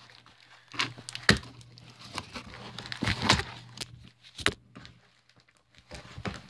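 Scattered rustles and knocks of a package being handled and torn open, with a quiet spell near the end and a faint steady low hum underneath.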